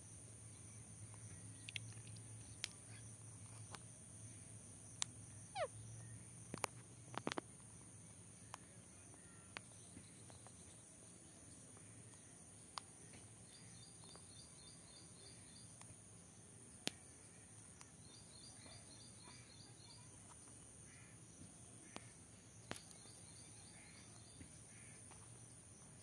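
Faint rural ambience with a steady high insect drone and three short trains of rapid insect chirps in the second half, over scattered sharp clicks as Alexandrine parakeets peck and bite at seeds and chillies on a brick wall.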